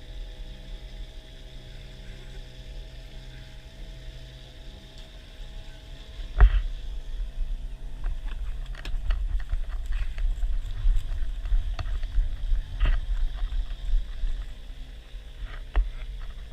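Small 49 cc two-stroke engine running at a steady speed on a homemade aluminum boat. Two sharp knocks come about six and thirteen seconds in, and from the first knock on an uneven low rumble with scattered clicks grows louder over the engine.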